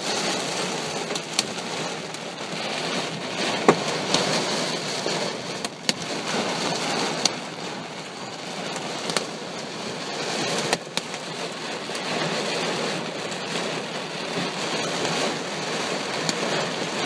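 Heavy thunderstorm rain pouring steadily, with scattered sharp clicks of impacts on nearby surfaces.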